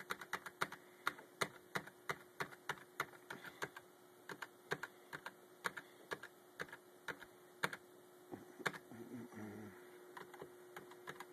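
Computer keyboard key tapped repeatedly, about three clicks a second, hammering the F11 key at the HP boot screen to enter system recovery. A faint steady hum runs underneath.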